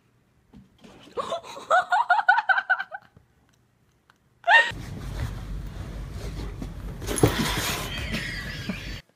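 A person giggling in quick, high-pitched bursts for about two seconds. Later a short rising sound is followed by a steady background hiss and hum.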